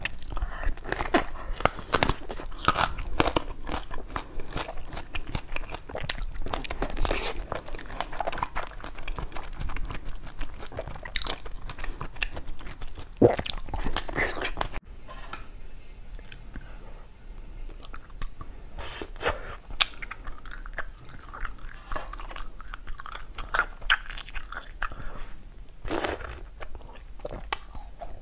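Crunching bites and chewing, close to the microphone, of a blue watermelon-shaped treat. About fifteen seconds in, the sound cuts to a quieter stretch of sparser chewing and mouth sounds.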